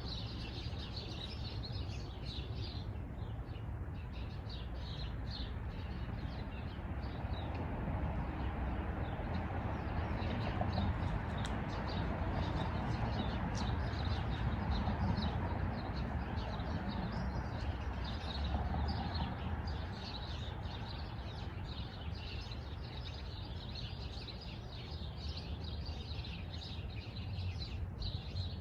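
Small birds chirping in quick, repeated short notes throughout, over a steady background rush that swells through the middle.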